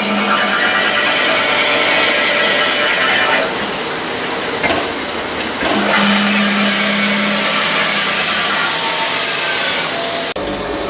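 Metal-cutting machine tool running on an engine cylinder block: a loud, steady grinding noise with a low hum that fades and returns. It cuts off abruptly near the end.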